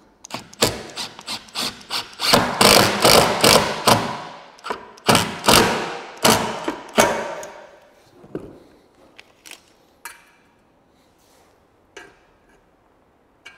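Impact driver driving lag screws through an aluminum railing post base into the wooden floor, in a run of short bursts that stop about seven or eight seconds in. A few light clicks and taps follow.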